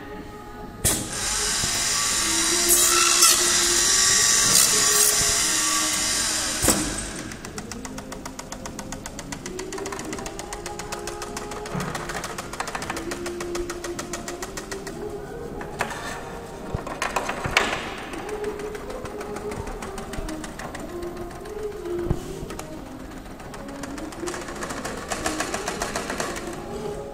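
A CNC channel letter bending machine at work. First comes a loud, high-pitched, drill-like whir for about six seconds, then a fast, even ticking from the machine that carries on while the strip is handled. Music plays in the background.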